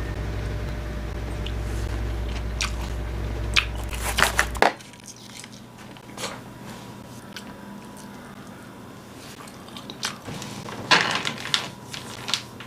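A person eating: chewing and biting with scattered sharp clicks and crackles, thickest near the end. A low steady hum runs underneath and cuts off suddenly about four and a half seconds in.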